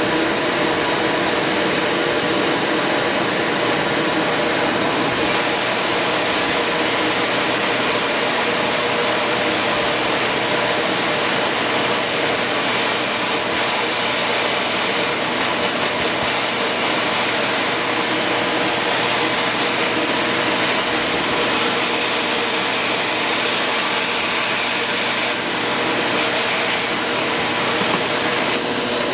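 Shark vacuum cleaner running steadily at full power, a constant rushing with a steady high whine.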